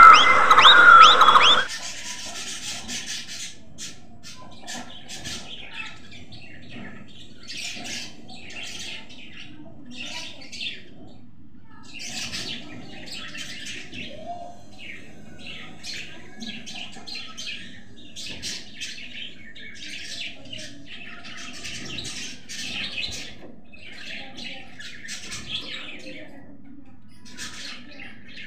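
A flock of budgerigars chattering loudly, cut off suddenly about a second and a half in. Then budgerigar chicks in a nest box give short, raspy begging cheeps over and over, with irregular gaps.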